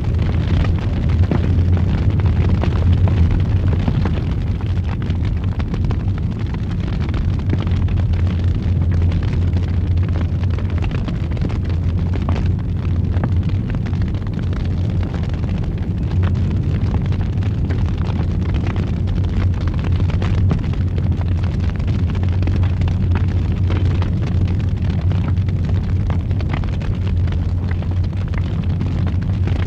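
Wood fire in a fireplace burning steadily: a constant low rumble of flames with frequent small crackles and pops.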